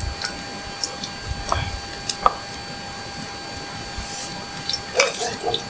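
A spring roll frying in hot oil in a cast-iron skillet over a wood fire: a steady sizzle with scattered pops and crackles, a small cluster of louder pops about five seconds in.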